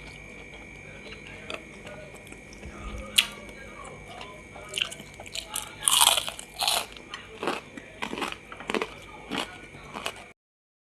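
A person biting and chewing crunchy food close to the microphone, a run of sharp crunches from about halfway in after a single sharp click earlier. A faint steady high whine sits underneath, and the sound cuts off abruptly just before the end.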